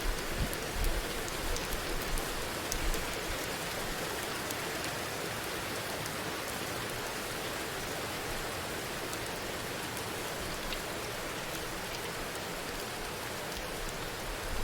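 AI-generated heavy rain (ElevenLabs sound-effect generator) as a steady downpour, with fine pattering ticks and a few low thuds in the first three seconds. No thunderclap comes, though the prompt asked for rain followed by lightning.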